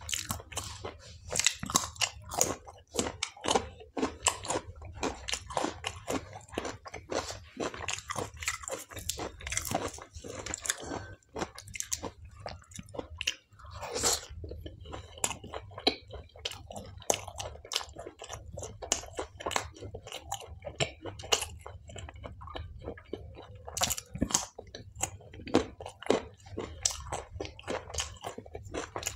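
Close-miked eating sounds: a person biting and chewing food, with many short, sharp, irregular mouth clicks and crunches. A steady low hum runs underneath.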